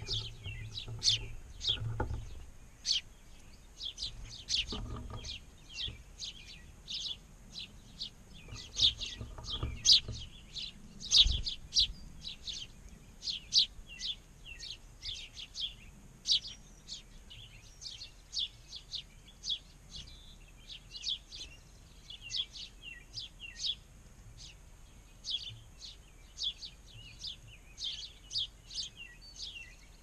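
House sparrows chirping at the feeder: a steady string of short, sharp cheeps, roughly two a second, throughout. A few dull low thumps come in the first dozen seconds.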